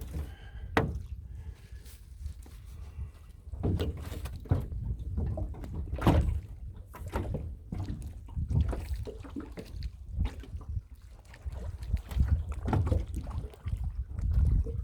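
Water sloshing and lapping at a small boat's hull, with irregular knocks on the hull, over a steady low wind rumble on the microphone.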